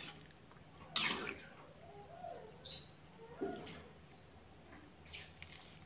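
Quiet stirring of tofu in coconut milk in a metal pan with a spatula, with a scrape about a second in and a few short, high chirps scattered through.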